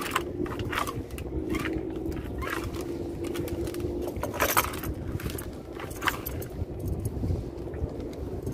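Fishing net gear clinking and rattling irregularly as it is handled on a small boat, over a low rumble. A steady hum stops about four seconds in.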